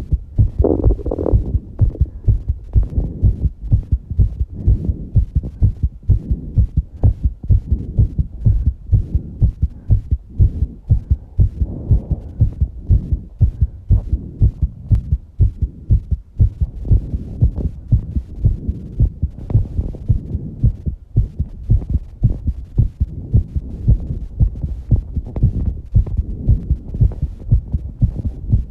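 A person's heartbeat beating fast in a steady run of low thumps, raised by exercise, with heavy breathing swelling in now and then.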